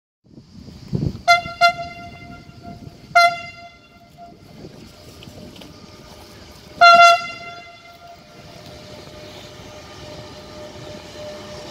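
Train horn sounding four single-pitch blasts, two short toots about a second in, then a longer blast about three seconds in and another about seven seconds in, over the steady running noise of a container freight train hauled by an electric locomotive.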